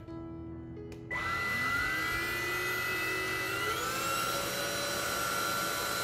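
Boar Force D14 cordless stick vacuum switched on in normal mode: a click, then about a second in the motor starts with a steady rush of air. Its whine rises as the motor spins up and climbs again partway through.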